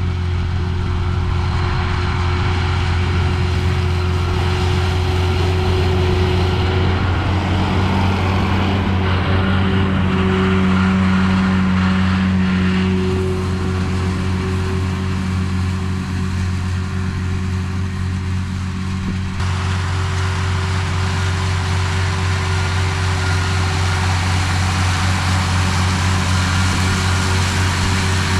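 Tractor engine running at a steady speed.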